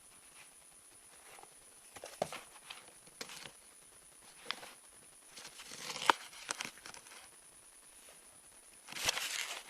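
Package being handled and opened by hand: intermittent crinkling and rustling with scattered sharp clicks, the loudest rustle coming near the end.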